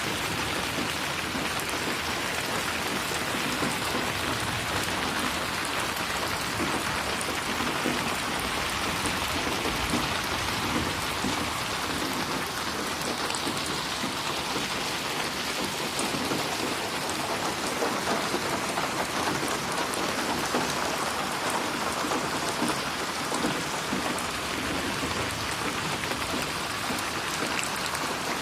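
Steady, heavy rain falling and splashing on a surface, a dense even hiss with many small drop ticks and no thunder.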